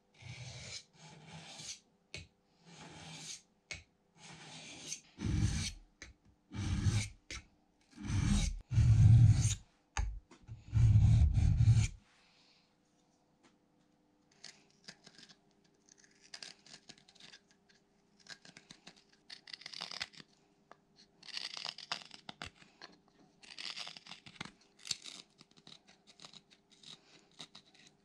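A small carving gouge is rubbed back and forth on a diamond sharpening plate in rasping strokes, about one a second, the heaviest strokes near the middle, until they stop about twelve seconds in. After a short pause come quieter, scratchy bursts of short cuts as the freshly sharpened gouge pares a wooden block.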